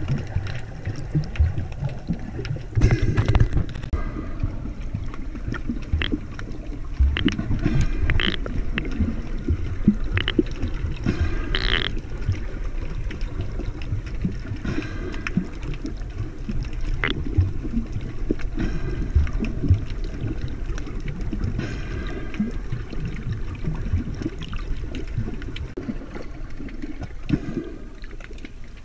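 Muffled water sloshing and gurgling heard through an underwater camera housing, with irregular low knocks and scattered clicks.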